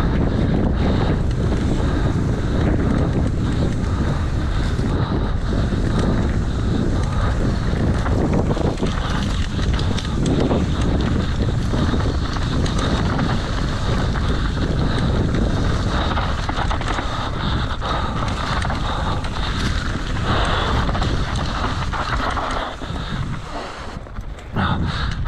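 Wind rushing over the microphone of a mountain biker's camera while riding, over a steady low rumble with scattered rattles and clicks. The noise drops briefly near the end.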